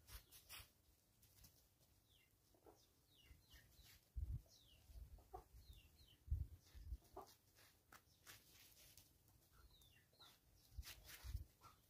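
Faint soft clucking of foraging chickens, short scattered notes, with short high falling chirps and a few low thumps.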